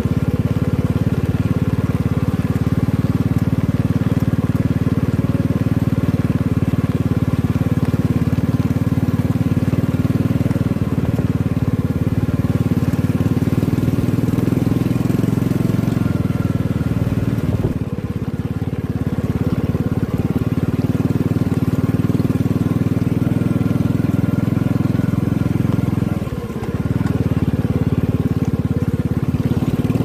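Motorcycle engine running steadily while riding along a muddy dirt track. Near the end the engine note dips briefly and then picks up again.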